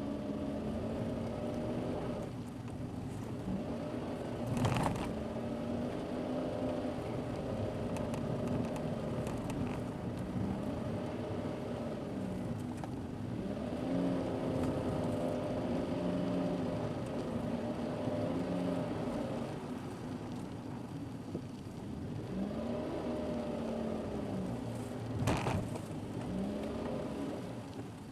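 Car engine and road noise heard from inside the car through a dashcam, the engine note rising and falling as the driver works the throttle on a winding mountain road. Two sharp knocks, about 5 seconds in and again near the end.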